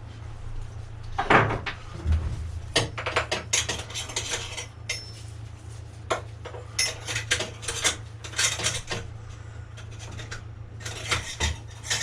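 Repeated metal clinks and clanks of a steel exhaust head pipe being handled and worked into place on a dirt bike's frame, over a steady low hum.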